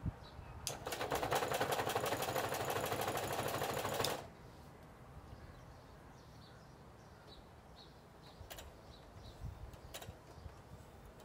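Singer Heavy Duty sewing machine running under its motor, stitching leather in a fast run of stitches for about three seconds, starting a little under a second in and stopping abruptly. A few faint clicks follow.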